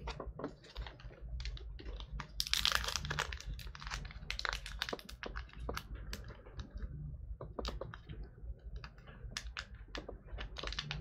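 Trading cards being handled, with many small clicks and snaps, and a card pack wrapper crinkling. The crinkling is loudest for about a second, starting roughly two seconds in.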